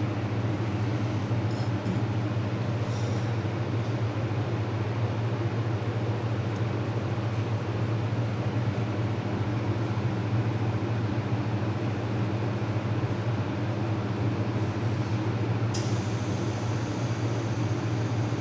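Steady machinery hum with a strong low drone and an even noise. A faint high hiss joins near the end.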